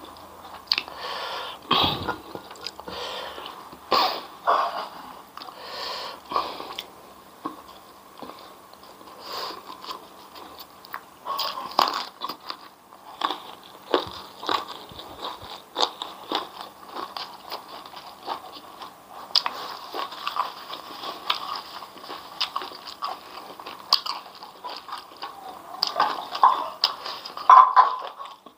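Close-miked chewing of a meal of rice with crisp fried grasshoppers and raw vegetables: steady wet chewing broken by sharp, crisp crunches every second or two.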